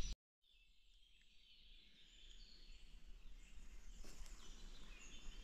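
Faint forest ambience with distant birds chirping, fading in after a moment of dead silence at a cut.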